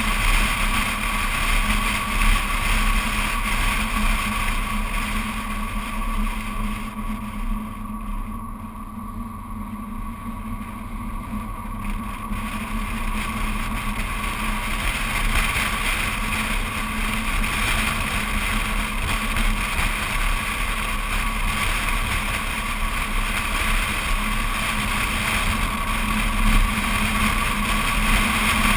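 BMW Z4 Coupé driving on an open road, heard from a camera mounted outside on the car: steady wind rush and road noise with a steady hum underneath. It eases off about seven seconds in and builds back up over the following ten seconds.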